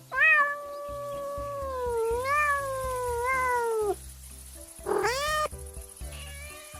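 A cat meowing: one long drawn-out meow of nearly four seconds that wavers in pitch, then a short rising meow about five seconds in, over background music.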